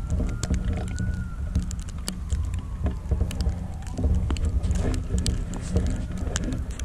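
Low, uneven rumble of wind on the microphone, with scattered sharp clicks and ticks. A faint siren wails slowly up and down behind it.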